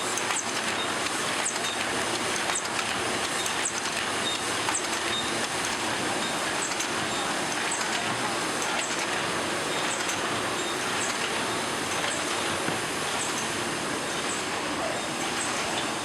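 Machinery running steadily: an even, dense mechanical noise with faint high clicks scattered through it.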